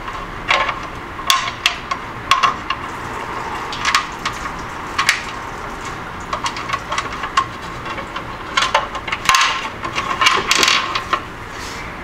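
Hands fitting a back plate into a hard plastic electrical enclosure: irregular clicks and knocks of plastic and small parts, coming thick and fast about three quarters of the way in.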